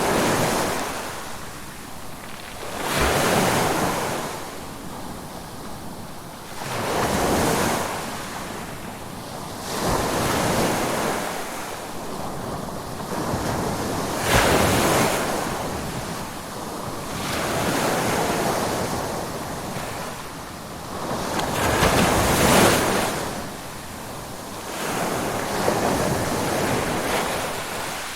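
Ocean surf: waves breaking and washing up the shore one after another, a surge of rushing water every three to four seconds.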